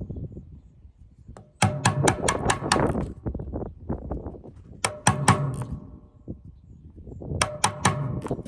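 Mallet tapping a metal hole punch through stirrup leather: three bursts of four or five quick, sharp blows with a short metallic ring, a couple of seconds apart.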